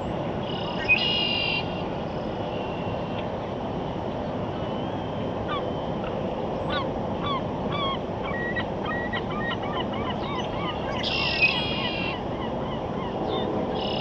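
Outdoor ambience: a steady rushing noise, with small birds chirping through the middle and three short honking calls, about a second in, about eleven seconds in and at the end.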